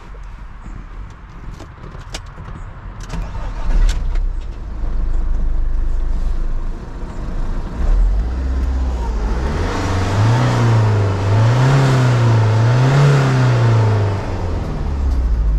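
Fiat Ducato's 2.3-litre four-cylinder Multijet turbodiesel idling with the van standing still, a few light clicks early on. From about nine seconds in it is revved in neutral, the revs rising and falling three times before settling back to idle.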